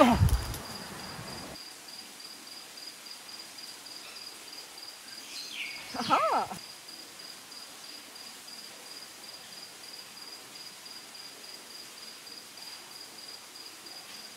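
Crickets chirping in a steady, high, even pulse, with a short loud vocal shout at the very start and another about six seconds in.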